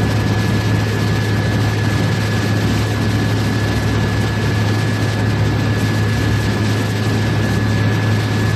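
Pilot boat's engines running in a steady low drone, with rushing water and wind noise and a thin steady whine above it.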